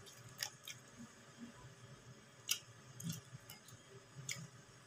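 Quiet chewing of food, with a few faint sharp mouth clicks scattered through it, the loudest about halfway.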